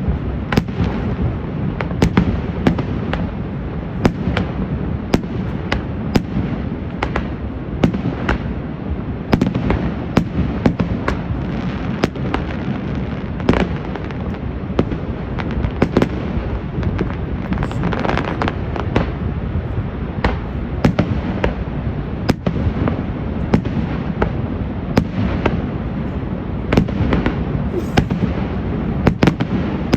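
Fireworks display: a continuous run of sharp bangs and pops, several close together at times, over a steady low rumble.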